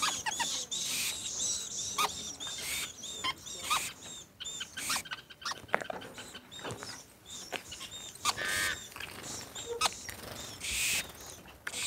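Many small birds chirping and calling over one another, a dense, continuous run of quick, high chirps.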